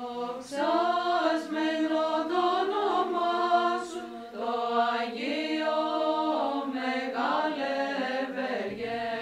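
Byzantine chant sung by a choir of Orthodox nuns: a steady held drone note beneath a slowly moving melody.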